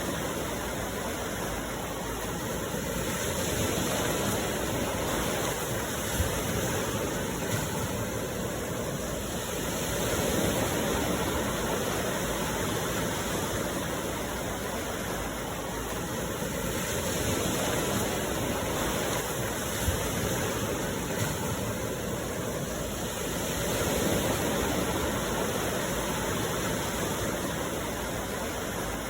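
Sea waves washing onto the shore: a steady rush of surf that swells and eases about every six or seven seconds, with a few faint ticks.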